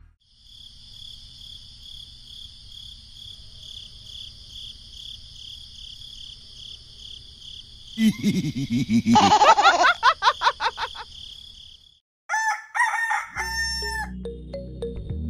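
A rooster crows once, loud and long, about eight seconds in. Before it there is a steady high-pitched pulsing sound. Near the end come a few bright chime notes, then background music begins.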